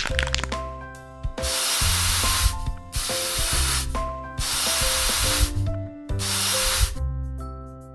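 Aerosol can spraying foam in four hissing bursts of about a second each, over background music.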